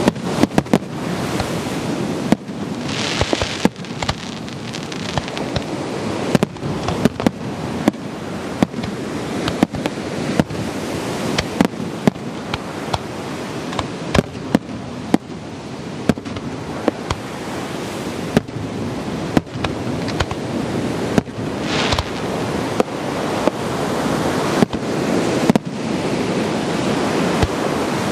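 Aerial fireworks display: shells bursting in a rapid, uneven string of sharp bangs, at times several a second, over a steady wash of noise. There are brief hissing bursts about three seconds in and again about twenty-two seconds in.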